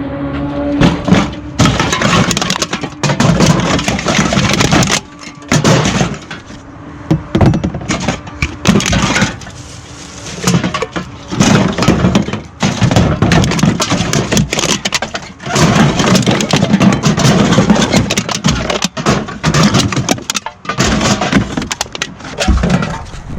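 Loud, repeated crashing and clattering, like things being smashed or thrown onto a hard pile.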